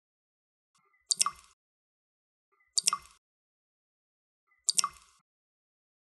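Water drops falling into water one at a time: three drips a little under two seconds apart, each a quick double plink.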